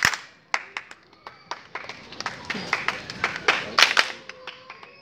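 Hand claps from a group, uneven and without a steady beat, with a few louder sharp strikes, the loudest right at the start and a cluster near the end.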